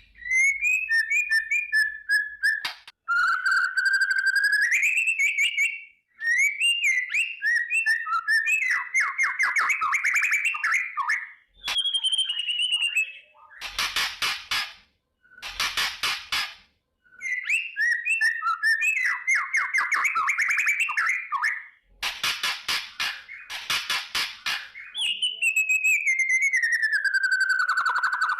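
A white-rumped shama singing loud whistled phrases that slide up and down in pitch. They are broken up by several bursts of fast, dry, crackling 'kretekan' rattles.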